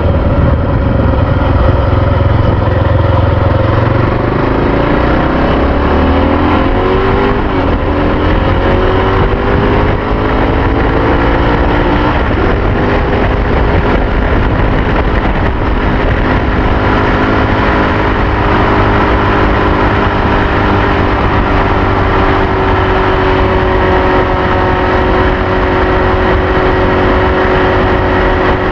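Honda XR650R's single-cylinder four-stroke engine pulling the motorcycle up to highway speed, its note rising over roughly the first dozen seconds and then holding a steady pitch while cruising. A steady rush of wind and road noise runs underneath.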